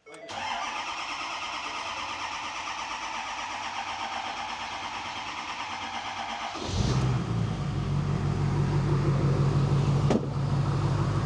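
Ford 6.7L Powerstroke V8 turbo-diesel being cranked over by its starter for about six and a half seconds, then catching and running at a steady idle. It is the first start after a stuck injector was replaced; the stuck injector had kept rail pressure too low for the engine to start.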